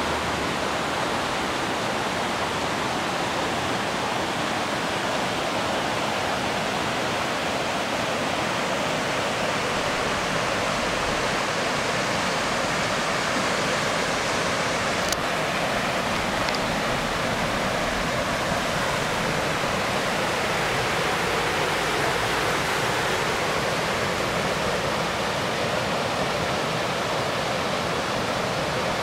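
Smith River rushing over rocky rapids: a steady, even rush of white water, with one faint click about halfway through.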